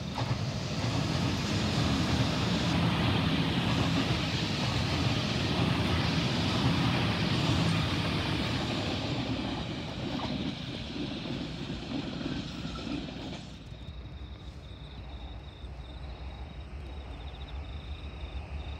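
Electric double-deck passenger train passing close by, its wheels and running gear rumbling loudly on the rails for about thirteen seconds before the noise drops away suddenly. Afterwards a steady high insect trill is left.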